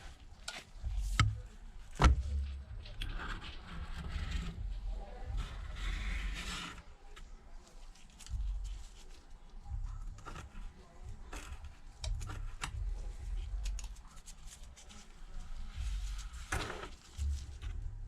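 A small tool scraping and rubbing along the iPad's frame to clear it for the new screen, with scattered sharp clicks and low handling knocks.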